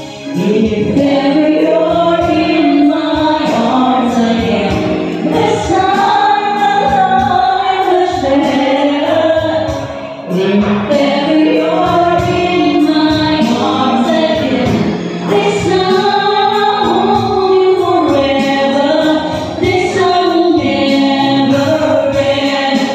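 Two women singing together into microphones, accompanied by a Roland electronic keyboard.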